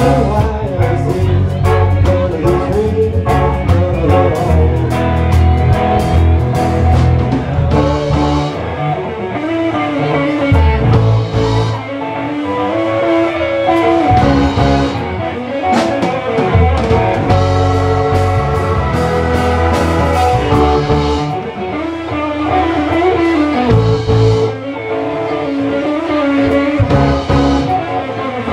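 Live band playing an instrumental funk jam: drum kit and electric guitar over a steady low bass line.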